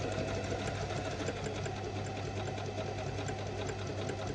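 Foot-pedal electric sewing machine stitching: a steady motor hum with a fast, even needle clatter, running kind of slow.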